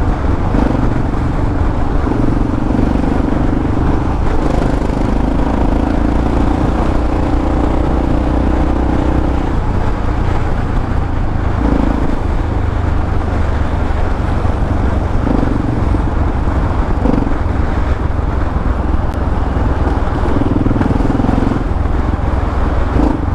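Yamaha XT 600E single-cylinder engine running through an old Coyote aftermarket exhaust while the bike is ridden. A steady low rumble, with a louder engine note that swells and drops away several times.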